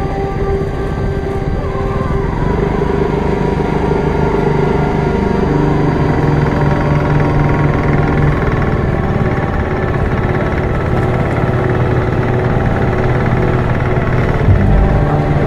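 A vehicle engine running as it drives, its pitch stepping up and down a few times, with a brief low thump near the end.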